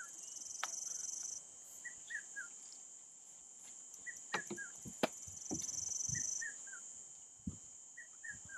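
Insects buzzing in a steady high drone, louder for a second or so at the start and again around six seconds in. Over it a bird gives short falling chirps in twos and threes about every two seconds, with a few soft knocks and thuds in between.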